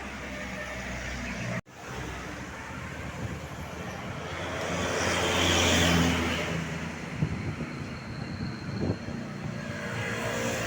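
A road vehicle passing by: tyre and engine noise swells to its loudest about halfway through and then fades. The sound drops out for an instant about a second and a half in.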